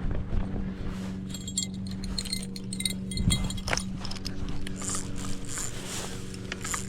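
A small bite bell on a fishing rod jingles in irregular bursts: a catfish tugging on the line. A steady low hum runs underneath.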